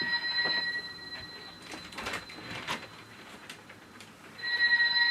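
Toy telephone's electronic ring tone, set off by its microwave motion sensor picking up movement, cuts off about a second in. A few light knocks and clicks follow, and the steady ring starts again near the end.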